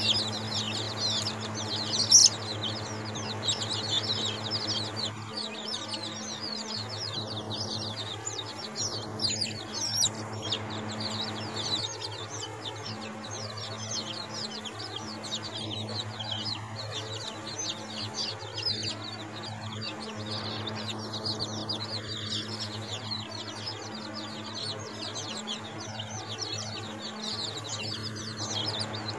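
A flock of week-old chicks peeping constantly, many short high cheeps that slide down in pitch and overlap, busiest in the first ten seconds. A steady low hum runs underneath.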